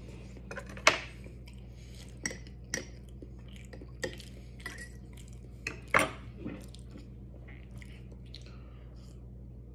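Tableware clinking and knocking on a table: a handful of separate sharp clinks, the loudest about a second in and about six seconds in, over a steady low hum.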